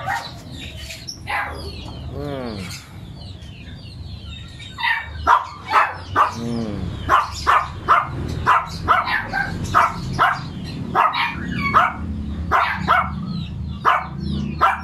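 A dog licking its deep wound to clean it, with wet lapping strokes about two a second, steadiest in the second half.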